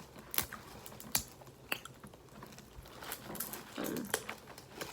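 Irregular sharp clicks and cracks of Dungeness crab shells being broken and picked apart by hand, a few each second.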